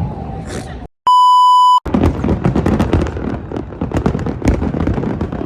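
A loud, steady electronic bleep lasting under a second, about a second in, cut sharply in and out like an edited-in censor bleep. It is followed by fireworks crackling and popping thickly, many sharp cracks a second.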